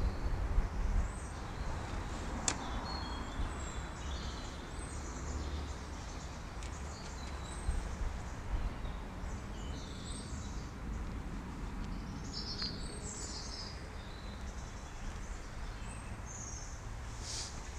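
Birds chirping intermittently over a steady low rumble, with a sharp click about two and a half seconds in.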